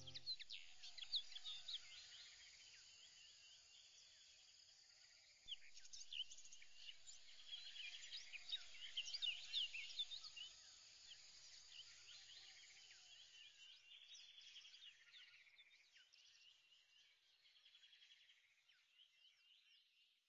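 Faint ambience of many small birds chirping and twittering together, busiest in the middle and fading out near the end.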